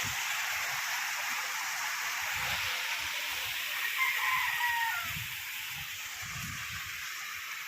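Steady hiss of heavy rain and rushing water, easing slightly after about five seconds, with a short high wavering call about four seconds in.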